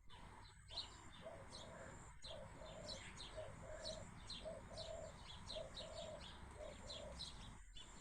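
Small birds, sparrows, chirping in many short, high notes, faint, with a low cooing in short repeated notes starting about a second in.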